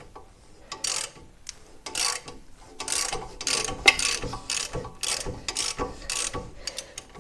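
Socket ratchet clicking in repeated short back-and-forth strokes, about one a second, working a seized ball-joint pinch bolt loose after penetrating oil, rocked gently so it doesn't snap.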